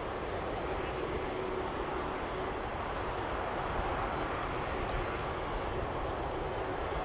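Jet engines of a Boeing 747-8F freighter (GEnx-2B turbofans) running, a steady, even rushing noise with a faint steady hum under it.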